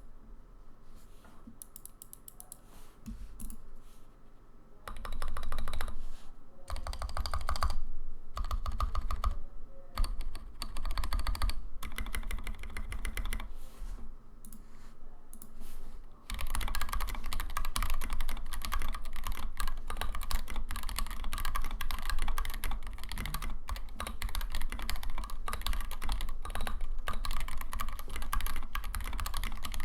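Custom mechanical keyboard with stock Tealios 67g linear switches, SA-profile keycaps and an aluminium KBDFans Tofu case being typed on. A few scattered keystrokes come first, then short bursts of fast typing with pauses, and steady, continuous fast typing from about halfway through.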